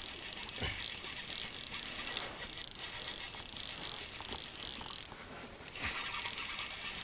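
Ice-fishing reel being cranked, its gears ticking rapidly and steadily as a hooked fish is wound up through the ice. The winding pauses briefly about five seconds in, then starts again.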